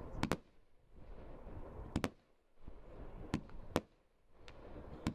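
Oriental Fireworks Frozen Sun fan barrage cake firing: sharp bangs every second or two, some in quick pairs, with a rushing noise between them that builds before several of the bangs.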